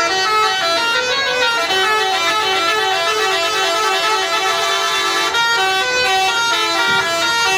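Bus telolet horn of the basuri multi-tone type playing a melody, its pitched notes stepping quickly from one to the next.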